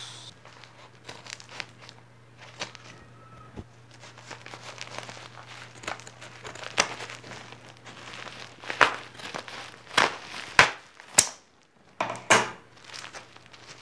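Plastic courier mailer bag crinkling and crackling as it is handled and cut open with a pair of large scissors. A run of sharper, louder crackles comes about two thirds of the way in.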